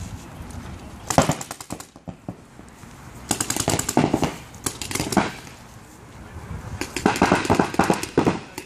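Paintball markers firing rapid strings of shots in several bursts, the first about a second in, a longer one in the middle and another near the end.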